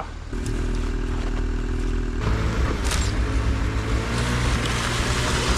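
Small engine of a kei mini truck running steadily, then turning louder and rougher about two seconds in.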